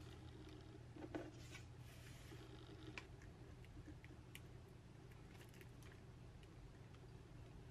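Near silence with a low steady hum: faint clicks and rustles of stickers and paper being handled, then a pen writing on a paper note.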